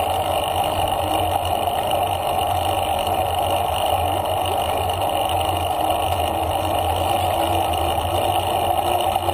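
Steady wind rushing over an action camera's microphone, with bicycle tyre noise on asphalt, while riding at a steady pace.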